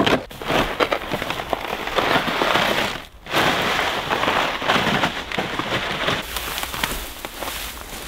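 Dense crackling and crunching of crusty snow, dry brush and grass under boots and a dragged plastic sled, mixed with firewood being handled. The sound breaks off briefly about three seconds in.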